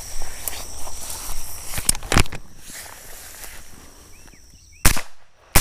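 Footsteps crunching and rustling through brush under a steady insect buzz, then two sharp rifle shots from an AR-15 (5.56) about two-thirds of a second apart near the end, fired at feral hogs walking away.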